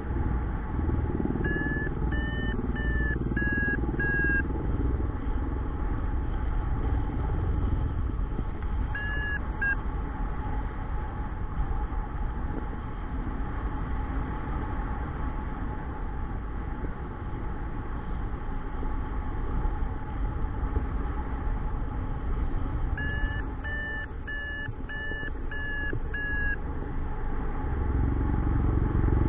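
Airflow rushing over the microphone of a paraglider in flight, with a flight variometer beeping in short, evenly spaced runs of about two beeps a second, near the start and again near the end, and a single beep in between: the vario signalling lift.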